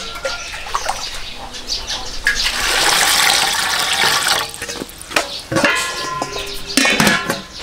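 Water poured from a metal bowl into a large aluminium stockpot: a steady splash and gurgle for about two seconds in the middle, after a few light clanks of the bowl.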